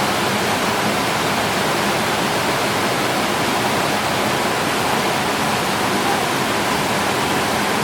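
Steady rush of white water from a mountain stream and waterfall, an even wash of noise with no breaks.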